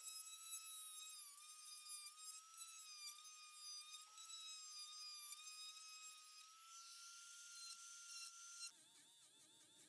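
Die grinder running at high speed with a steady high-pitched whine that wavers slightly in pitch as it carves wood. Near the end the sound changes abruptly to a rougher, fluttering tone.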